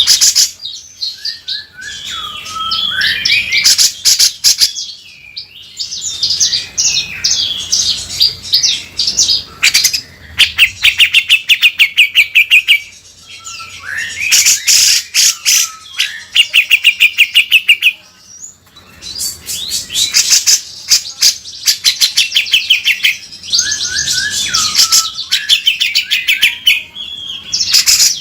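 Grey-cheeked bulbul (cucak jenggot) singing hard in loud chattering phrases, with fast runs of rapidly repeated harsh notes and short pauses between phrases.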